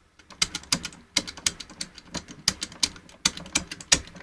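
Combination dial wheels of a Master Lock 5401D key safe being rolled to set a new code, a quick uneven run of sharp clicks, about five a second, as each digit steps past its detent.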